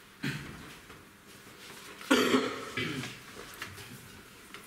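A person coughs about two seconds in, a short loud cough followed by a smaller one. Faint rubbing of a cloth wiping a chalk blackboard comes near the end.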